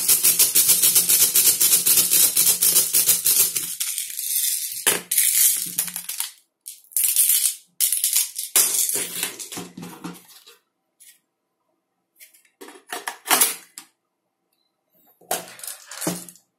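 Plastic airsoft BBs rattling and clicking as they are pushed from a clear speedloader into a spring pistol magazine. It is a dense run of rapid clicks for the first few seconds, then short separate bursts of clicking with silent gaps between them.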